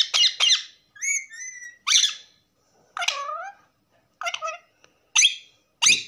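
Pet green parakeet giving a string of about ten short squawks and whistled chirps with brief gaps between them, several sliding down in pitch.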